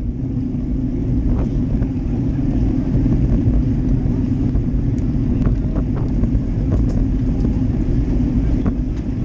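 Steady low rumble of wind and tyres on asphalt, picked up by a GoPro Hero Session mounted on a road bike riding in a bunch of racing cyclists, with a few faint short clicks.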